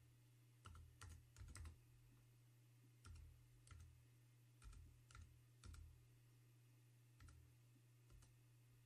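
Computer keyboard being typed on slowly: about a dozen faint, separate keystrokes at uneven intervals.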